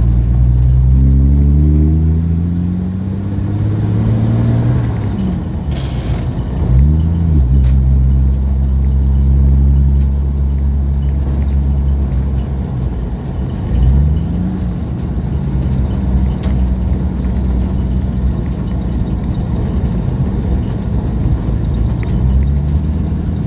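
1937 Dodge panel van's flathead six-cylinder engine pulling away, the revs climbing, then dropping and rising again at two gear changes of its three-speed gearbox, about five seconds in and again near the middle, before it settles to a steady cruise. Heard from inside the cab.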